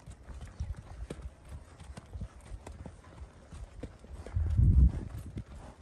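Hooves of several saddled horses walking on a dirt trail, with irregular knocks of their steps. About four and a half seconds in there is a louder low thump and rumble.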